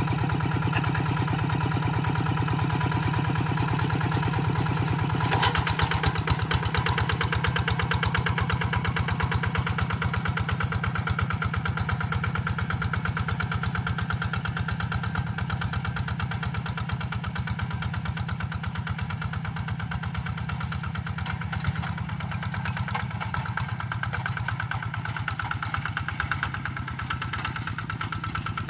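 Two-wheeled hand tractor's single-cylinder diesel engine chugging steadily under load as it pulls a plough through a rice field, growing fainter toward the end as it moves away.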